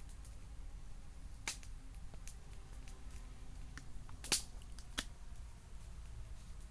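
Wood burning in a campfire, crackling with sharp irregular pops, the loudest about four seconds in, over a low steady rumble.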